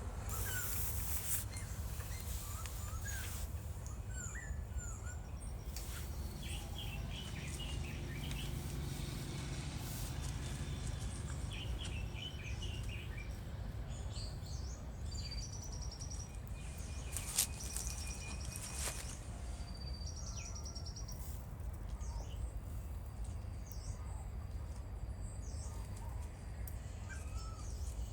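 Outdoor natural ambience: a steady low rumble with small birds chirping on and off at several pitches, including quick runs of chirps. One sharp click stands out partway through.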